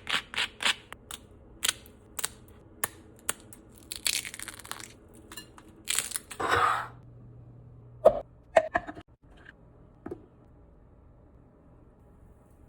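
Crisp baked rice chips snapping and crunching: about a dozen sharp cracks in the first seven seconds, then a few knocks around eight seconds in.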